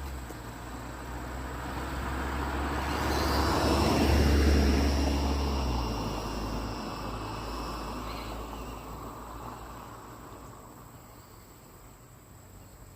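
A vehicle passes by, its sound swelling to a peak about four seconds in and then fading away, the pitch dropping as it goes past.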